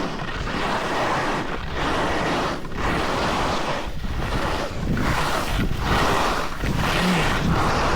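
Wind rushing over the microphone and skis scraping over snow on a downhill run. The rush comes in surges broken by short lulls about once a second.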